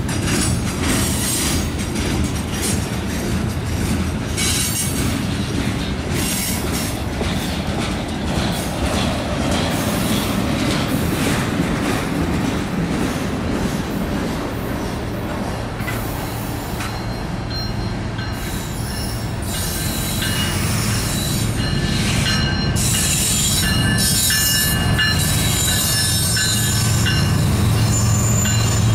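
Freight cars of a CSX mixed manifest train rolling past at close range: a steady rumble of steel wheels on rail with clicks over the rail joints. From a little past halfway, high-pitched wheel squeal rings out on and off.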